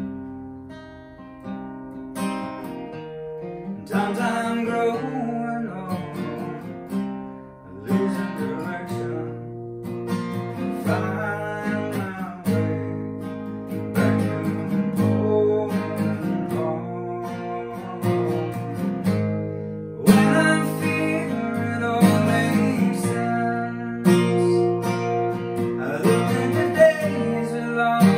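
Acoustic guitar playing an instrumental passage, chords strummed and picked in a steady rhythm. It starts softly and builds to harder strums about two-thirds of the way through.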